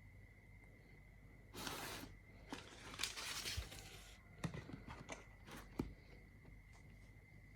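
Packaging being handled during an iPad Pro unboxing: two short rustling, tearing sounds of paper or plastic wrap, then several light clicks and taps. A faint steady high whine sits underneath.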